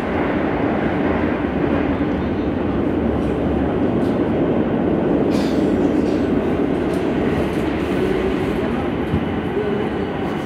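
Madrid Metro Line 12 train running between stations: a steady, even rumble of wheels on rail, with a couple of faint clicks about four and five seconds in.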